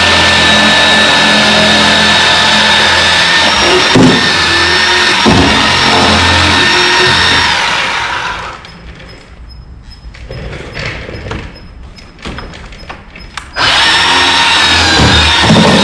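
Chainsaw cutting into the wooden boat transom, running steadily at speed, then dying away about eight seconds in. A few light clicks and knocks follow, and the saw starts up again at full speed about two seconds before the end.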